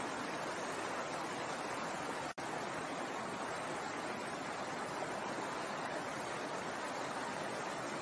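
Shallow stream flowing over rocks: a steady rush of running water, with a split-second gap in the sound about two seconds in.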